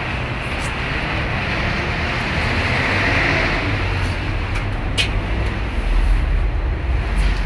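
Steady city street noise with a heavy low rumble from traffic, swelling a little in the middle, with a sharp click about five seconds in.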